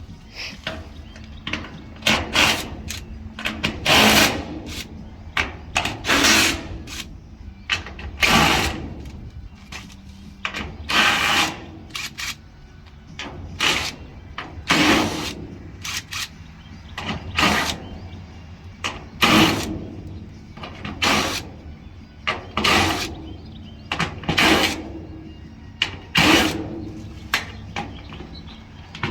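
A power drill or driver run in short bursts, about one every one to two seconds, over a low steady rumble, as bolts are worked on a steel grain bin's panels.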